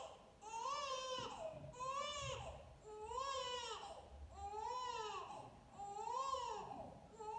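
A newborn baby crying in a steady run of short wails, about six of them, each rising and then falling in pitch.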